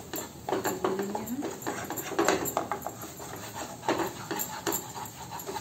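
Spatula knocking and scraping against a pan while stirring a thick masala paste mixed with roasted gram flour, in quick, irregular strokes.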